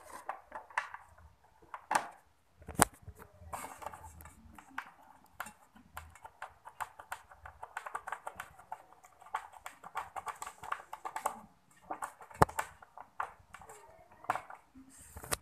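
Hand-tool work on a motorcycle's plastic front fairing: a long run of small rapid clicks and light metal clinks from a screwdriver and fasteners, with a sharp knock about three seconds in and another near the end.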